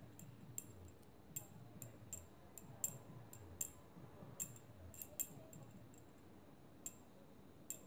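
Faint handling noise: small, irregular clicks, one to three a second, from fingers winding yarn around a pencil.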